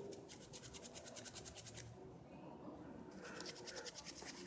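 Toothbrush bristles scrubbing an iPhone 4S port, a faint, fast back-and-forth scratching. It pauses about two seconds in and starts again about a second later.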